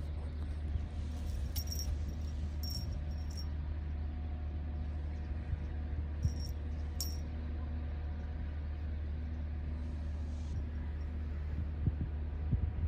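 Steady low machinery hum with a few faint steady tones above it, like outdoor air-conditioning units or a generator running. A few brief high-pitched sounds come in the first three seconds and again about six to seven seconds in.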